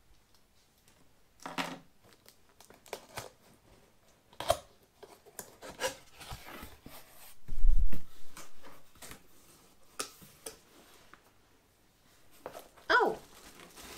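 Cardboard packaging being handled: a box sliding out of its sleeve and its flaps being opened, with scattered scrapes, rustles and knocks, and one dull thump a little past halfway, the loudest sound.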